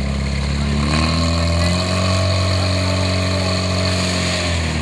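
Portable fire pump's engine running, then revved up about a second in. It holds high revs and drops back toward idle near the end.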